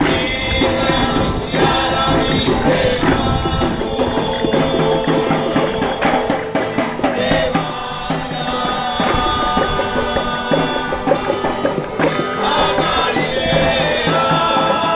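Live group music: voices singing over a strummed guitar, with a hand drum and a tambourine keeping the beat.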